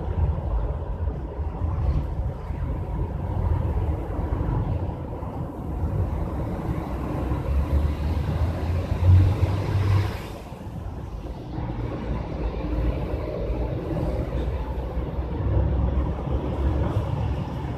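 Wind buffeting the microphone: an uneven low rumble that swells and eases, strongest about nine seconds in, then dips briefly.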